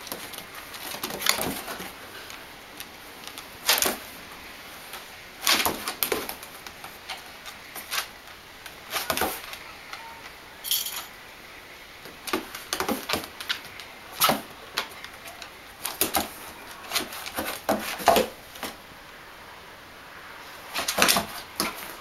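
A pumi and a standard schnauzer play-wrestling on wooden floorboards: their claws and paws click, scrabble and knock on the wood in scattered, irregular clusters.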